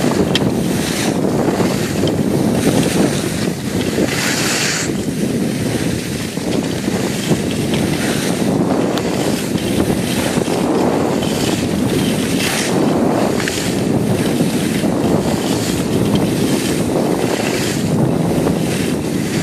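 Skis hissing and scraping over packed snow, with wind rushing over the microphone of the skier filming. The noise comes in surges as the skis bite through the turns, the strongest about four seconds in.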